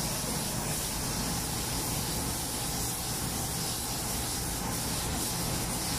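Air spray gun hissing steadily as it sprays paint onto a car body panel, over a steady low rumble.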